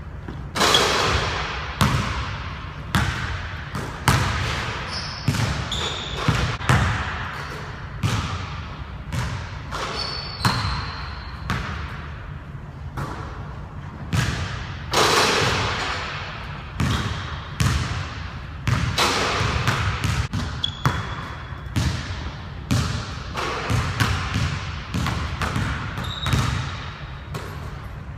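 Basketballs bouncing again and again on a hardwood gym floor, each impact echoing in the large hall, with a few short high sneaker squeaks.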